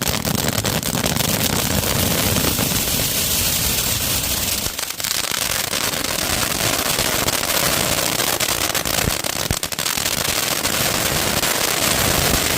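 Diwali firecrackers going off in a dense, continuous crackle of rapid pops over a steady hiss, thinning briefly about five seconds in and again near ten seconds.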